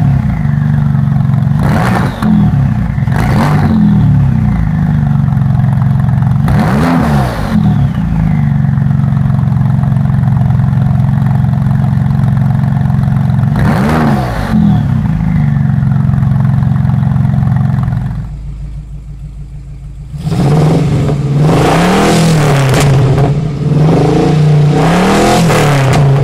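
A Porsche 911 996 Turbo's twin-turbo flat-six, fitted with a new valved exhaust, idling with four quick throttle blips. After a short drop in level near the end, a 1979 Pontiac Trans Am's V8 is revved over and over in quick blips.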